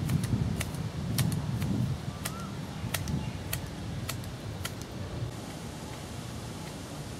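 Outdoor ambience: a low rumble, strongest in the first two seconds, with a dozen or so sharp, irregular clicks over the first five seconds.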